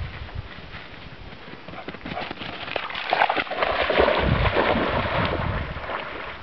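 A dog bounding into a pond through shallow water, splashing heavily. The splashing builds about two seconds in and eases near the end as the dog reaches deeper water.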